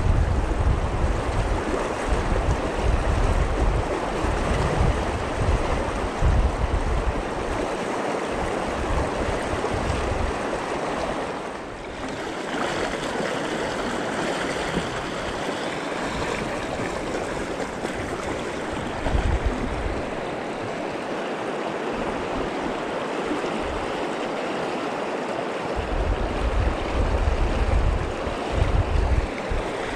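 River current running steadily over a fast shallow stretch, with low gusts of wind buffeting the microphone during the first several seconds and again near the end.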